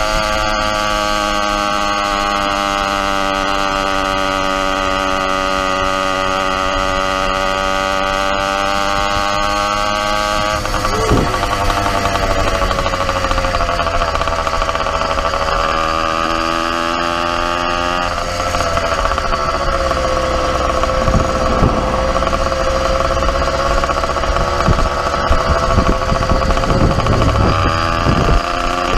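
YD100 two-stroke motorized-bicycle engine running under way with a high buzz. Its pitch drops in two steps, about a third and about two thirds of the way through, as the throttle eases, then climbs again near the end. Wind rushes over the microphone.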